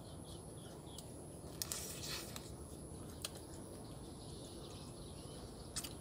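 Quiet outdoor background: a steady low hum of ambient noise with a faint high steady tone, a few faint bird chirps in the first second, and several soft clicks and taps scattered through it.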